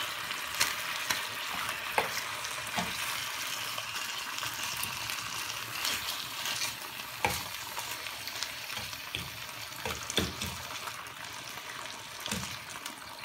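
Chicken breast fillets sizzling in a hot frying pan, a steady hiss, with a few short clicks and knocks as they are laid in and moved about with a fork.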